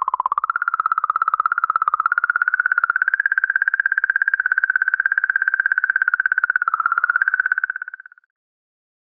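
Comet 67P's 'singing': plasma oscillations in the comet's magnetic field, sped up into an audible, eerie warbling tone with a fast flutter. The tone wavers, creeps slightly higher in pitch, then fades out about eight seconds in.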